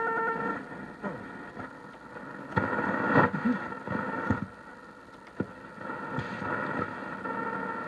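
Karaoke machine radio receiver putting out interference and static: a pulsing buzz stops about half a second in, giving way to crackling garbled noise that swells loudest around three seconds in, with a few sharp clicks, and the buzz comes back near the end.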